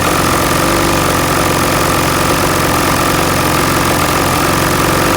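800 E-TEC two-stroke engine idling steadily with a knocking vibration, which the owner puts down to bad motor mounts.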